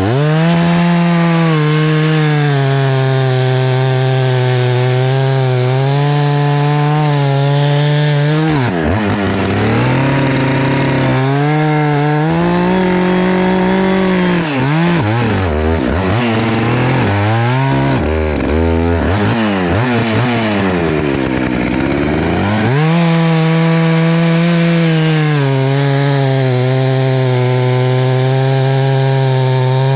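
Husqvarna 288XP two-stroke chainsaw running at high revs. From about nine seconds in, its pitch sags and recovers again and again as the chain loads up in the wood, then holds steady and high again near the end.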